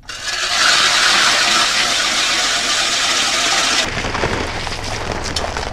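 Ice auger boring through lake ice, a loud steady grinding hiss that cuts off abruptly about four seconds in. It gives way to the low, even rumble of the Chevy's engine running.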